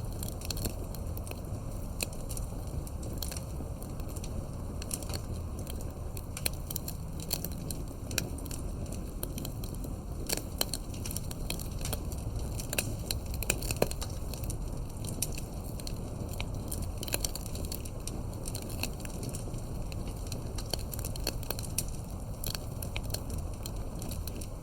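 Campfire crackling: irregular sharp pops and snaps of burning wood over a steady low rumble of the fire.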